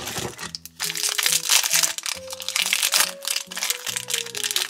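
A plastic wrapper crinkling as it is torn open and unwrapped by hand, over background music with steady held notes.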